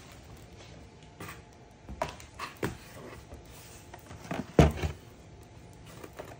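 Boxed toys being handled inside a cardboard box: scattered knocks and rustles of cardboard and plastic packaging, with one louder thump about four and a half seconds in.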